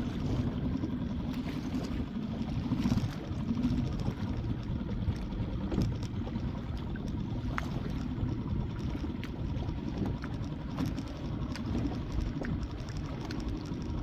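Wind blowing across the microphone, with water lapping and splashing as a paddle is dipped alongside a small Pelican Bass Raider 10E fishing boat on choppy water. A few faint clicks and knocks come through now and then.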